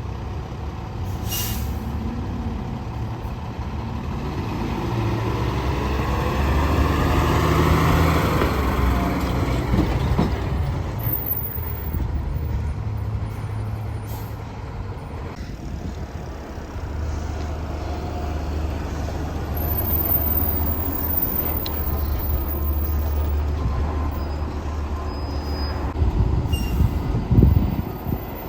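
Heavy diesel fire truck engine running. Its pitch and level rise from about five to nine seconds in as it revs and pulls away. A short loud burst comes near the end.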